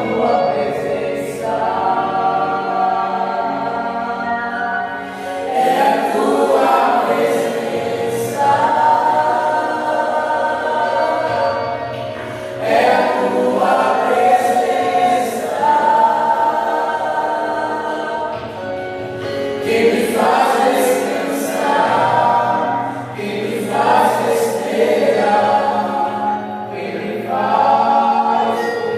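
A choir singing a gospel hymn in harmony, in sustained phrases of a few seconds each.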